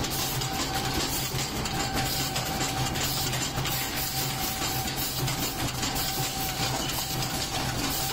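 Mechanical paper plate forming machine running at high speed: a steady, dense clatter from its rapid forming strokes, over a steady whine and a low hum.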